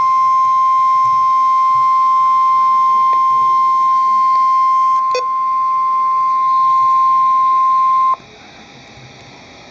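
Emergency alert attention tone: a single steady high tone, the 1050 Hz warning alarm tone used by NOAA Weather Radio. It sounds for about eight seconds, then cuts off suddenly, leaving faint radio hiss. It signals that a severe thunderstorm warning is about to be read.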